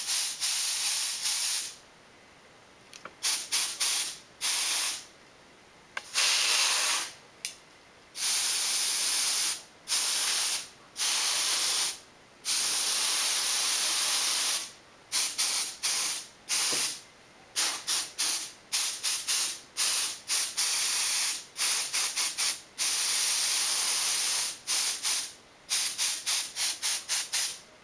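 Can of CRC compressed-gas duster spraying in repeated hissing bursts, some held for a second or two and many short quick puffs, blowing dust out of a laptop's cooling fan.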